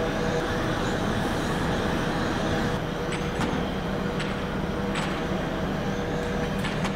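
Gas torch flame burning with a steady rushing hiss as it heats a sand casting mold, over a constant hum of foundry machinery. A few light ticks come in the second half.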